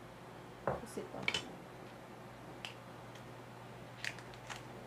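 A few small, separate clicks and crinkles of a spoon against a ceramic bowl and a foil cream cheese wrapper being handled and folded.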